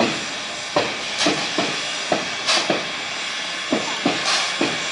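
Class 52 steam locomotive moving slowly, giving an exhaust chuff of hissing steam about every second and a half, with sharp, unevenly spaced knocks in between.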